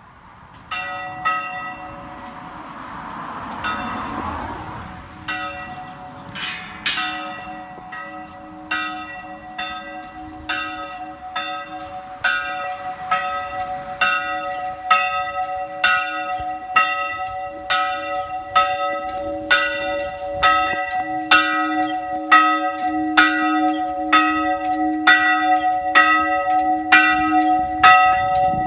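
Church bell ringing, its clapper striking about once a second, the strikes getting louder as the swing builds, with the bell's hum ringing on between strikes.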